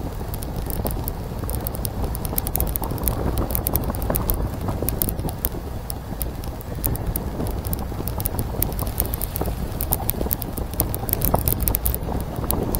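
Wind rushing over the microphone of a bicycle rider on the move, with frequent light clicks and rattles from the bike as it rolls along the road.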